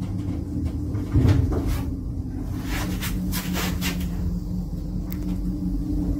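Old elevator car running, a steady low hum from the drive with scattered clicks and rattles from the car and its folding metal cabin doors.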